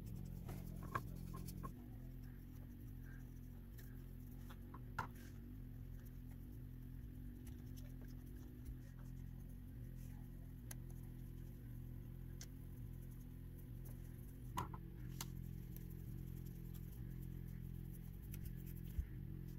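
A small brush scratching softly as it spreads finish over a wooden saw handle, with a few light clicks and knocks as the handle is turned in the gloved hands.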